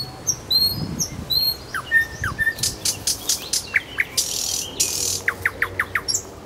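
Nightingale singing a varied phrase: high whistled notes, then a loud clicking rattle, then series of quick, sharply falling notes, with a fast run of about six near the end.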